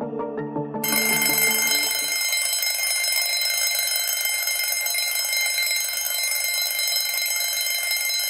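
Background music ends and, about a second in, an alarm clock starts ringing loudly and steadily: the timer's alarm signalling that the five-minute countdown has run out.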